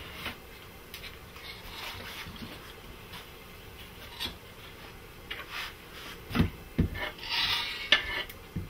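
Knife blade scraping across a wooden cutting board, sliding chopped chicken pieces off, with a few knocks of the board past the middle and a longer scrape near the end.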